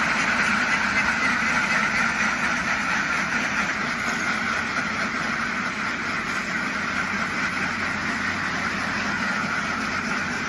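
Dense, continuous din of a large flock of domestic ducks quacking all together, easing off slightly after a few seconds.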